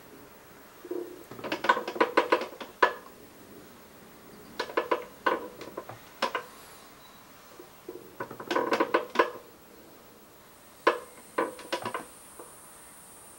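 Herman Miller Aeron chair's tilt mechanism creaking as the seated person rocks back in recline, four times, each a burst of rapid creaks and clicks.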